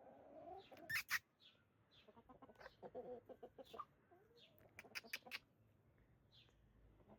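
Chickens clucking quietly in a string of short calls, with a couple of sharp clicks about a second in.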